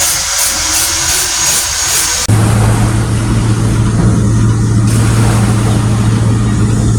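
A steady engine drone with a low, even hum comes in abruptly about two seconds in. Before it there is a hissy, rhythmic rasping with a thin high whine.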